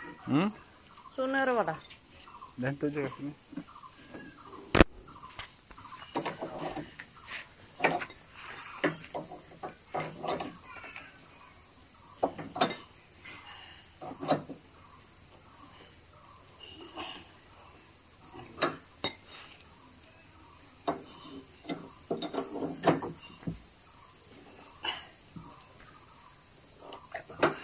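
Steady high-pitched insect chorus, like crickets, with people talking at times and scattered knocks and taps, the sharpest about five seconds in.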